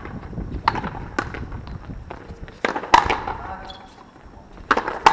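Frontenis rally: a hard rubber ball cracking off racket strings and the front wall. There are about five sharp hits in an irregular rhythm, each with a short ringing echo off the court walls.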